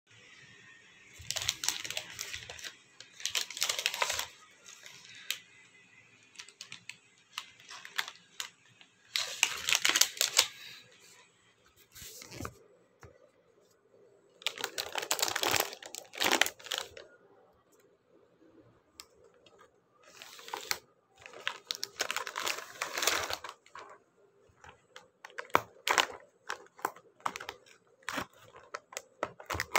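Crinkly plastic wrapper of a sweets packet rustling and tearing as the packet is opened and the plastic tray inside is handled. It comes in bursts of one to three seconds, with short pauses between.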